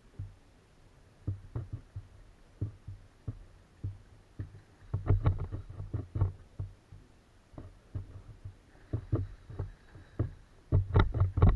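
Irregular knocks and thumps from fishing rods and gear being handled in a plastic sit-on-top kayak. They cluster about five seconds in and again near the end.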